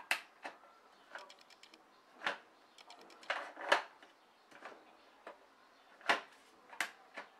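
Plastic clicks and knocks from hands handling a capsule coffee machine and a drinking glass on its drip tray: about nine separate sharp knocks over several seconds, with a run of faint ticks in the middle. No brewing or pump sound.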